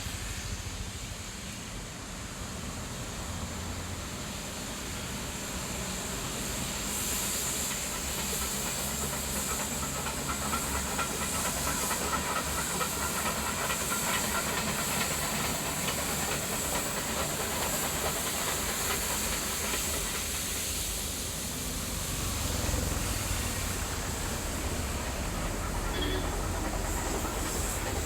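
Steam locomotive venting steam in a steady hiss over a low rumble; the hiss grows louder and brighter about seven seconds in.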